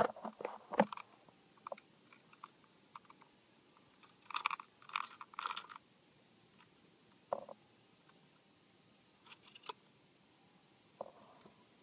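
Kel-Tec KSG pump-action 12-gauge shotgun being worked by hand to clear a jam: a spent shell that did not eject and the next round stuck part-way. Scattered metallic clicks and clacks of the action, with a cluster of three sharper rattles about four to six seconds in and a few more near the end.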